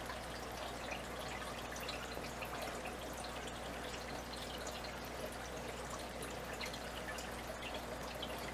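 Water trickling and dripping steadily in the aquarium, a continuous splash with many small droplet ticks, over a low steady hum.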